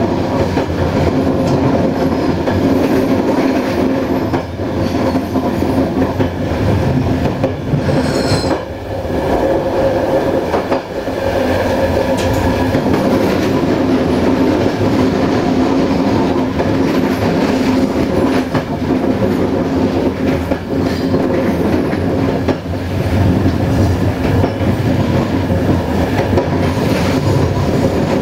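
Passenger train running along the track at speed, heard from inside the rear carriage: steady loud rolling noise with a constant hum and clicks over the rail joints. A brief high wavering squeal comes about eight seconds in.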